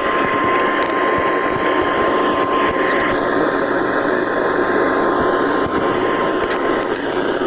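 Weather radio static hissing, with a steady single high tone under it, the NOAA weather radio alert tone, which cuts off about seven seconds in. A couple of faint clicks come through the static.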